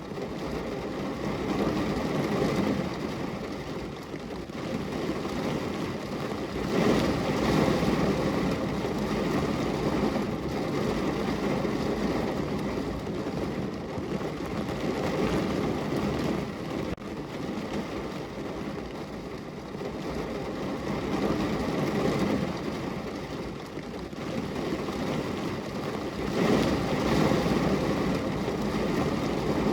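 Heavy rain pattering on a car's roof and body, heard from inside the car, a dense steady hiss that swells louder about seven seconds in and again near the end.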